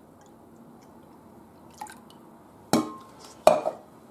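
Orange juice poured from a measuring jug into a glass bowl of red wine, a faint liquid trickle into liquid. Near the end, two sharp knocks.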